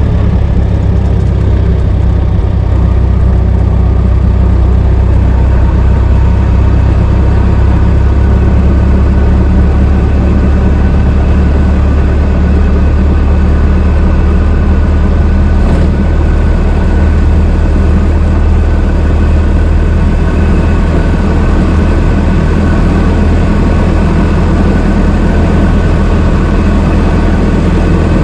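Old car's engine running steadily at an even speed, with a strong low hum that holds constant throughout.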